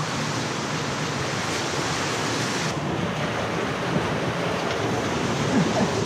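A steady, even rushing noise with no clear pitch, which fills in a little at the top end a little under halfway through.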